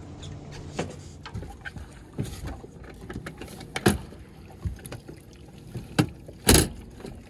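Metal clunks and knocks from a Minn Kota bow-mount trolling motor being swung over on its mount on an aluminum boat's bow. The loudest, longest clunk comes about six and a half seconds in.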